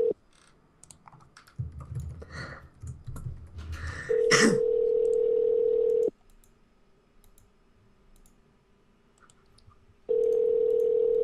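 Ringback tone of an outgoing Skype call to a phone number: a single steady tone about two seconds long that repeats every six seconds, sounding just at the start, again about four seconds in and again near the end. Faint clicks and keyboard taps fall in the gaps.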